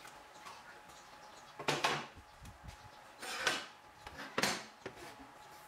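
Three separate bursts of hard objects being handled, clattering and scraping, the first the loudest and the middle one the longest.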